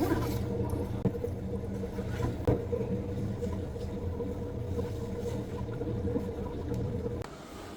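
A steady low machine hum with a few faint clicks, cutting off abruptly shortly before the end.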